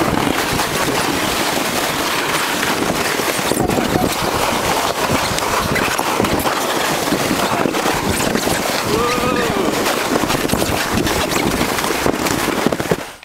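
A sled sliding over snow makes a steady, loud scraping hiss, mixed with wind buffeting the microphone. About nine seconds in there is a short voice cry that rises and falls.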